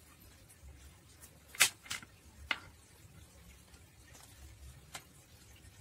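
Three sharp taps close together, then a lighter tick a few seconds later: small plastic and glass tubing fittings knocking against a tabletop as clear airline tubing is handled and set down.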